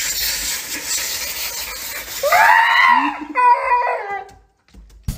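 Water spraying into a bathtub, then a wet husky gives a drawn-out howl that rises and falls, about two seconds in, followed by a few shorter yowls.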